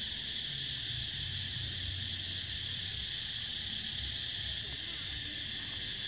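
Steady, unbroken high-pitched chirring of an insect chorus.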